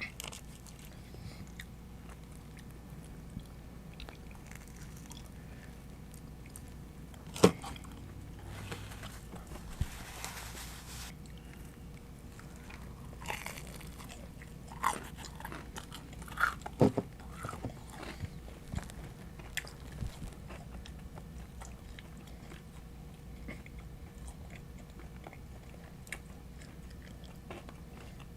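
Close-miked eating of Domino's pizza: chewing and biting with wet mouth clicks, and a sharp knock about seven seconds in.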